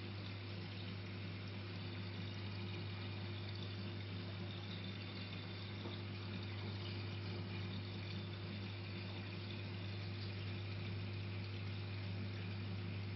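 Marine reef aquarium's pumps running with a steady low hum, under an even wash of moving, trickling water.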